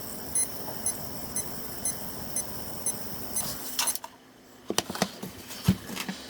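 Chieftec CTG-750C power supply whistling with a short high chirp about twice a second, the sign of a unit that will not start because of a primary-side fault. The chirping cuts off about four seconds in, followed by a few clicks.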